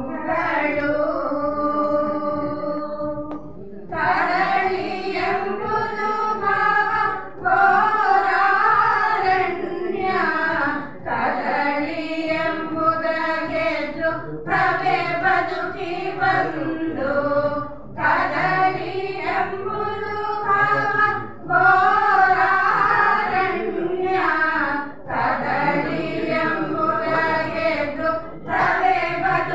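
A group of women singing a song together into a microphone, phrase by phrase, with brief pauses between the lines.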